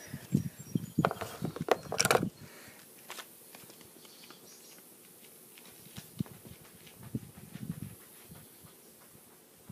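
A cluster of sharp clicks and knocks over the first two seconds or so, then faint outdoor ambience with scattered small ticks.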